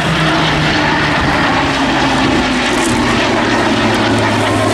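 A Spitfire and a Eurofighter Typhoon FGR4 flying past together in formation: a loud, steady mix of propeller-engine drone and jet noise. Its low pitch drops in steps as they go by.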